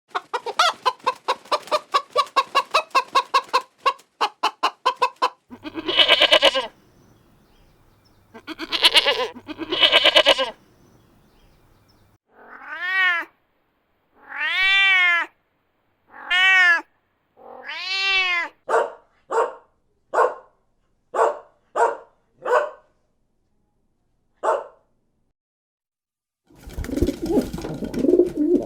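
A string of farm animal calls. First comes about five seconds of rapid clucking, then two longer, harsher calls. Then a run of cat meows: five long, rising-and-falling ones followed by several short ones. A low call starts near the end.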